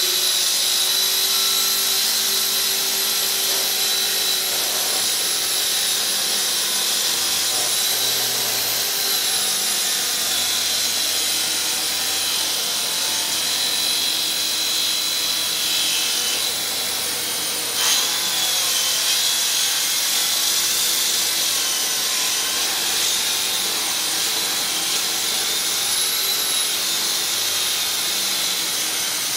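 Festool track saw running through a long cut in a thick wood slab along its guide rail, its dust extractor drawing through the hose. A steady high whine that wavers slightly in pitch, with one sharp click a little past the middle.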